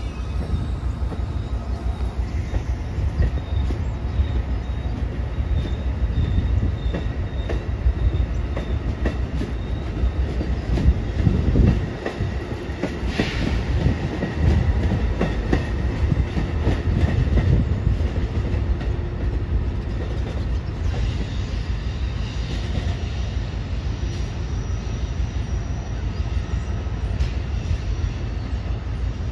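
Amtrak Northeast Regional train's Amfleet passenger cars rolling past and pulling away, wheels clattering steadily over rail joints and switches, with a faint high wheel squeal.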